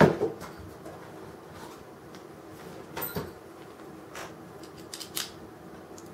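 Scattered small clicks and taps of a screwdriver and handled parts on a diecast metal model crane while its body is being unscrewed. The sharpest click comes right at the start and another about three seconds in.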